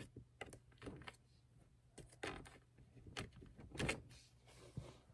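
Scattered faint clicks, taps and rustles of a spoon and plastic Baby Alive dolls being handled during a pretend feeding. The loudest knock comes near the end, followed by a short rustle.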